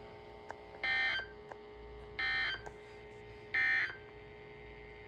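Emergency Alert System end-of-message code sent over NOAA Weather Radio: three short data bursts, each about a third of a second long and about 1.4 s apart, over a faint steady hum. The bursts mark the end of the required weekly test broadcast.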